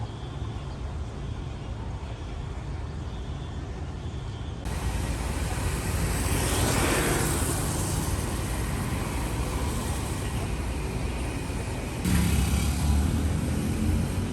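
Street traffic noise with a steady hum. A vehicle passes close, swelling and fading about six to eight seconds in, and a louder low rumble comes in near the end.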